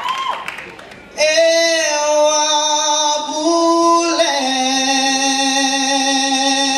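Solo dikir barat singer's voice holding long, drawn-out notes, one clear melodic line that steps to a new pitch about three seconds in and again about a second later. The sung phrase begins about a second in, after a short lull.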